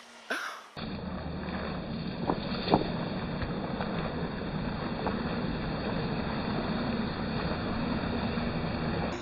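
StreamlineRC Thrasher RC jet boat running fast across the water, heard as a steady, muffled rush of water and wind with no high end, and a couple of faint knocks between two and three seconds in.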